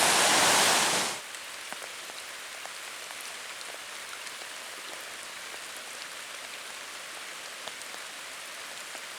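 Rushing water from the falls for about a second, then it cuts off and gives way to steady rain pattering with scattered single drops ticking.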